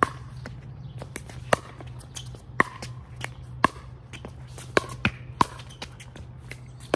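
Pickleball rally: pickleball paddles striking the plastic ball, with sharp hollow pops about once a second and three quicker hits close together about five seconds in.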